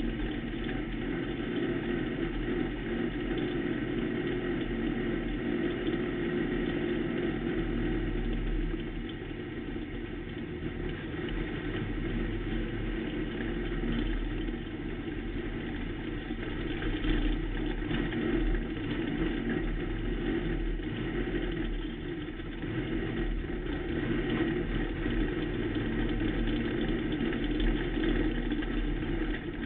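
Pro stock race car's engine running steadily, heard from inside the cockpit, its level swelling and easing a little now and then.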